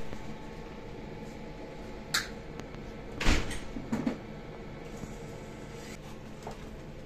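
Gas soldering torch burning steadily, with a few sharp knocks and clicks of metal tools on the workbench, the loudest about three seconds in.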